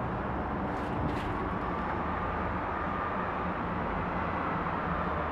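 Steady low background rumble with a faint hiss and a faint steady hum, with no distinct events apart from a couple of faint clicks about a second in.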